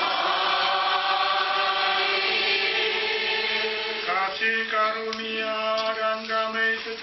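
Sung Catholic liturgy: voices of a congregation or choir hold a long sung chord, then about four seconds in a single male voice, the priest at the microphone, chants a line on steady held notes.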